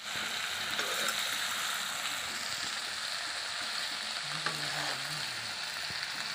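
Jackfruit pieces sizzling steadily in hot oil in a wok as they are stir-fried with a metal spatula, with a few sharp clicks and scrapes of the spatula against the pan.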